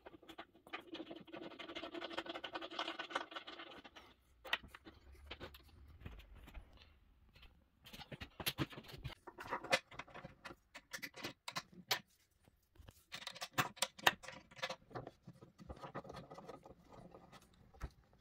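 Allen key clicking and scraping against metal bolts as they are turned into a wooden baby cot frame, with two longer squeaks, one near the start and one about two-thirds of the way through.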